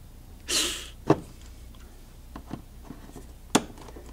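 Hand work at a car's plastic front grille while marking it with a marker: a short rustling rush about half a second in, then a few separate sharp clicks and light taps of plastic, the loudest just after a second and another near the end.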